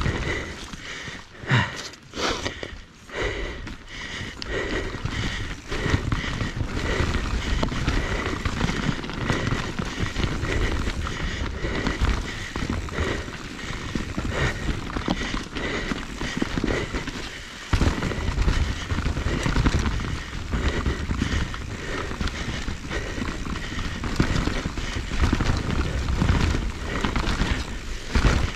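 Mountain bike being ridden down a rough, rocky trail: a steady rush of tyre and wind noise with frequent small knocks and rattles from the bike over the rocks.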